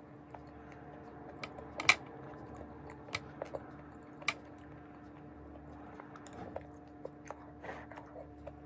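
Close-miked chewing of stir-fried vegetables, with scattered sharp mouth clicks and crunches, the loudest about two seconds in. A steady low hum runs underneath.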